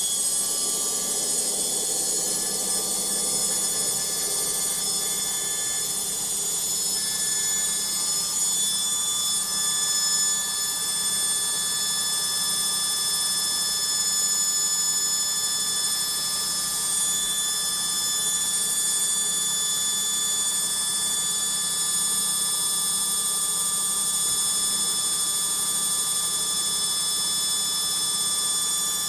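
Logik washing machine spinning at speed: a steady, high-pitched whine with several constant tones over a low hum.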